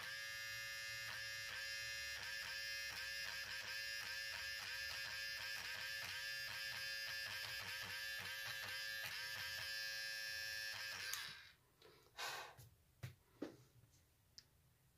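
Battery-powered Derwent electric eraser running with a steady whine that wavers as its spinning tip is dabbed repeatedly onto the paper to lift small highlight dots out of coloured pencil. It switches off about eleven seconds in, followed by a few faint knocks.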